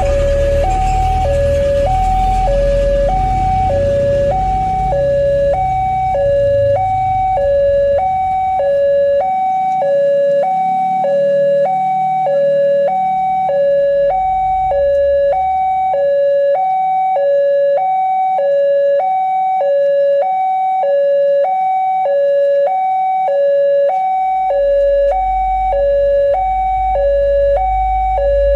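Railway level crossing alarm sounding its two-tone electronic warning for an approaching train. It alternates evenly between a lower and a higher tone, each held about two-thirds of a second. A low rumble runs underneath at the start and returns near the end.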